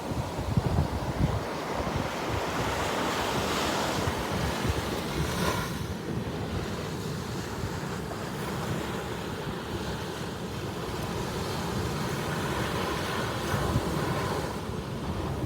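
Ocean waves breaking and washing onto a beach, a continuous surf wash that swells about three to five seconds in, with wind buffeting the microphone as low rumbling gusts.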